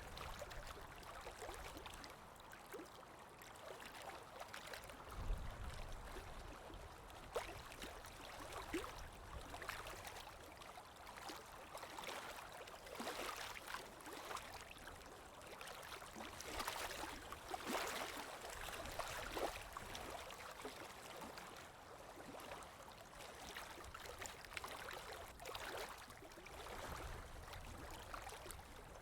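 Flowing, trickling water with many small splashes and gurgles, and a brief low rumble about five seconds in.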